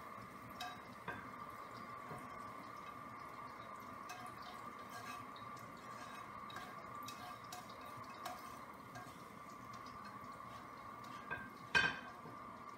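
Small clinks and scrapes of a utensil against a frying pan as sautéed onions are pushed out onto a plate, with one louder clank near the end. A faint steady hum runs underneath.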